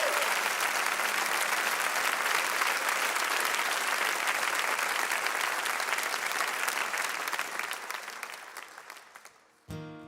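Studio audience applauding, the clapping dying away over the last couple of seconds. Near the end an acoustic guitar strums its first chords.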